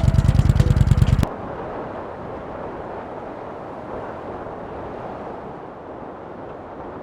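Music with a fast, even beat cuts off suddenly about a second in. A steady rushing noise like wind follows and slowly fades.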